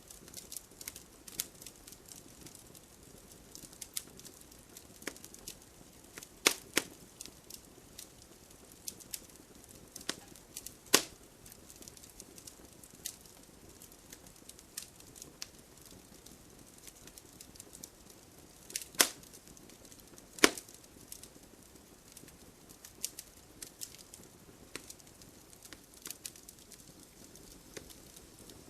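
Wood fire crackling in a fireplace: a steady scatter of small crackles with a handful of sharper, louder pops.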